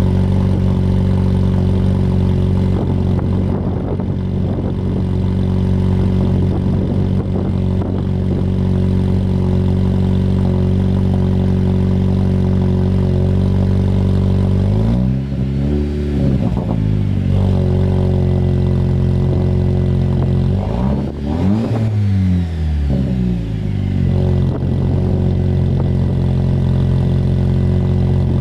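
2020 Jeep Wrangler's 2.0-litre turbo four-cylinder idling after a cold start through an AFE axle-back muffler-delete exhaust, with two brief revs about halfway through, the pitch rising and falling back each time.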